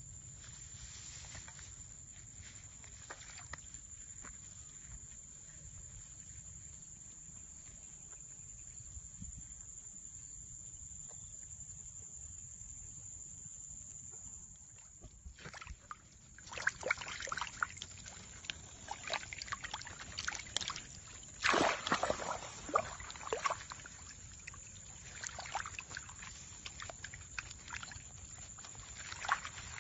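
Splashing and sloshing in shallow muddy water, irregular and sharpest a little past the middle. A low steady rumble and a thin, high, steady tone come before the splashing begins, about halfway in.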